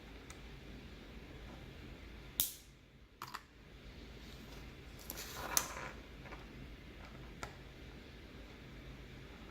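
Sharp plastic clicks and snaps from a Kailh MX switch opener being worked on Halo True mechanical keyboard switches: a loud snap about two and a half seconds in, two quick clicks just after, a rattling cluster of clicks around the middle, and a faint click near the end.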